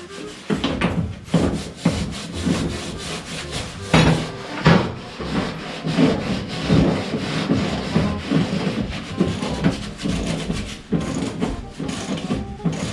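Irregular rubbing and scraping strokes of hand tools working on the car's metal bodywork, with two sharper, louder scrapes about four seconds in.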